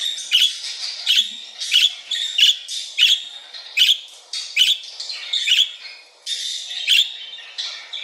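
Budgerigar flock chatter: a steady warbling twitter with sharp chirps a little more than once a second, much of it from a played-back recording of budgie sounds.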